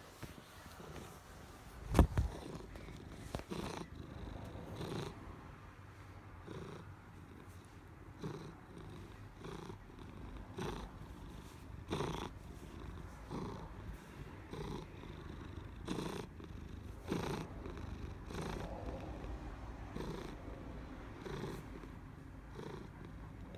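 Black-and-white cat purring close to the microphone, swelling in even pulses about every second and a half. A loud thump about two seconds in.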